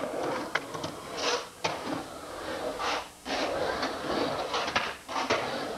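Skateboard wheels rolling and rasping across the concrete of an empty swimming pool, rising and falling as the skater carves the walls, with several sharp clacks of the board.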